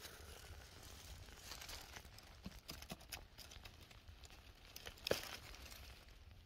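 Faint crackling and rustling of dry leaves, pine needles and twigs as a hand digs into the forest litter and pulls up a porcini mushroom (Boletus pinophilus), with one sharper snap about five seconds in as it comes free of the soil.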